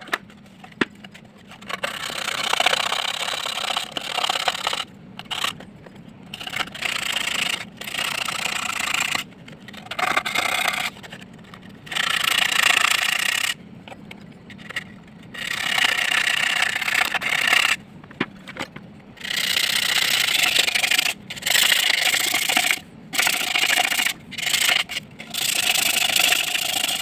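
Metal parts of a 12-volt electric car horn being rubbed clean on an emery sheet. The rasping scrubbing comes in repeated strokes of one to two seconds with short pauses between, to clear dirt and rust off the contact surfaces so the horn sounds properly again.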